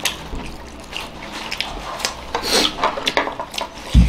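People chewing and eating momos, with light clicks and scrapes of plates and sauce bowls as the dumplings are dipped, and a dull thump near the end.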